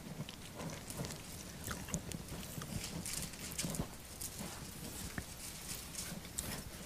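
Soft, scattered rustling and small clicks of Bible pages being turned as a congregation looks up a passage.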